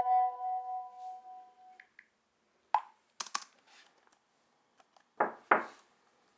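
A steady electronic tone held for about two seconds, then scattered clicks and taps from hands on a smartphone and a laptop keyboard and trackpad, with two louder knocks about five seconds in.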